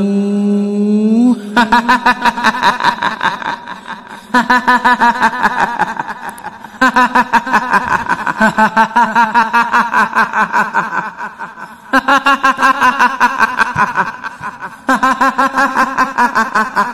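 A held chanted vocal note rises and breaks off about a second in. It gives way to high-pitched, rapid cackling laughter of a kuntilanak (Indonesian female ghost) horror voice, in five long runs with short breaks between them.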